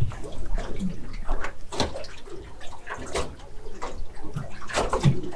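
A freshly landed tuskfish flapping on the boat deck: irregular wet slaps and splashes, with a few sharper knocks.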